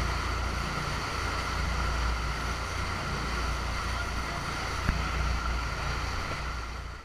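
A boat's engine running steadily at trolling speed with a low rumble, over the rushing of its churning wake and wind buffeting the microphone. It all fades out near the end.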